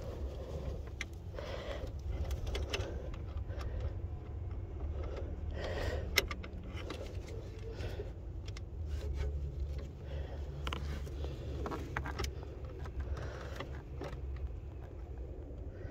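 Scattered metallic clicks and clinks of a hand tool and small metal parts as a Torx screw is worked loose under the car, over a steady low hum.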